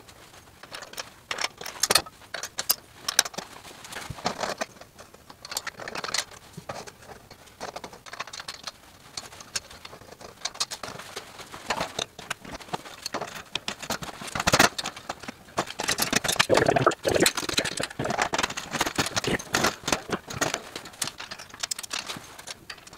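Metal frame tubes and a wire mesh basket of an inflatable pontoon boat clinking, knocking and rattling as the pieces are handled and fitted together. Irregular clicks and clatter, busier and louder in the second half.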